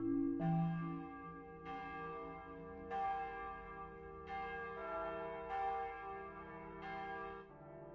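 Clock-tower bell tolling six times, about one and a quarter seconds apart, each stroke ringing on over a low held tone.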